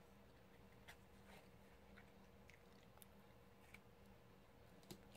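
Near silence: a faint steady room hum with about six faint, short ticks scattered through it, the clearest near the end, as a cardstock panel is handled.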